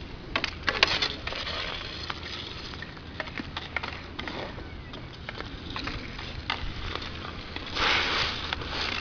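Roller hockey play on an outdoor sport court: scattered clacks and taps of hockey sticks on the ball and the court over the rolling of inline skate wheels, with a louder scraping rush about eight seconds in.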